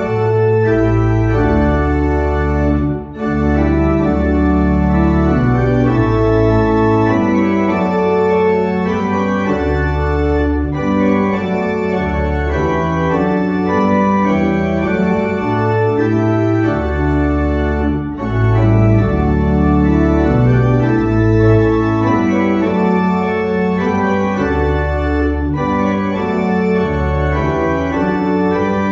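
Church pipe organ playing slow, held chords over a moving bass line, with a brief break between phrases twice.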